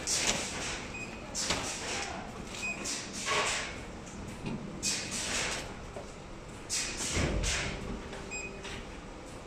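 Workshop machinery making irregular short hissing bursts and light knocks every second or two, over a steady low hum.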